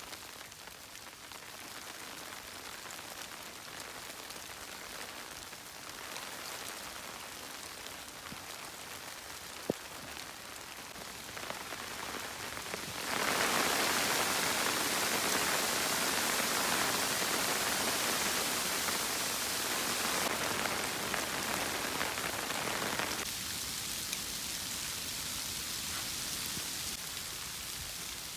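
Steady patter of precipitation falling on a surface. It swells louder about halfway through and eases back near the end, with one sharp click about ten seconds in.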